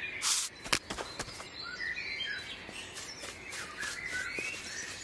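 Forest birds chirping and twittering, many short gliding calls overlapping. About a third of a second in comes a brief swish, followed by a few sharp clicks.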